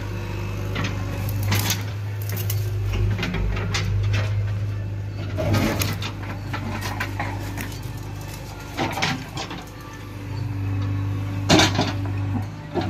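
JCB 3DX backhoe loader's diesel engine running steadily in the background, with scattered clicks and knocks on top and a few louder knocks near the end.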